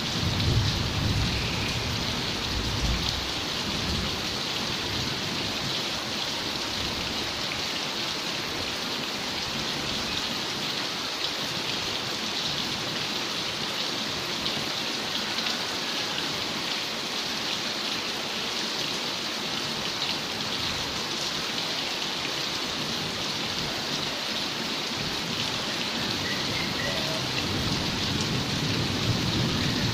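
Heavy rain falling steadily, a dense even hiss of drops. A low rumble of thunder fades out over the first couple of seconds.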